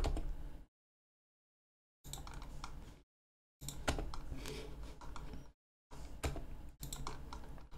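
Faint clicks from a computer mouse and keyboard over low room hiss, in four short stretches broken by gaps of dead silence.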